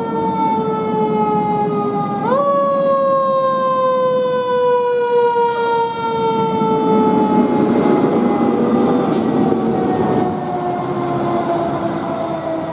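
Fire truck siren sounding one steady wail that slides slowly down in pitch, jumps back up about two seconds in, then winds down slowly again. Under it is the truck's engine and road noise, loudest about eight to ten seconds in as the ladder truck passes close by.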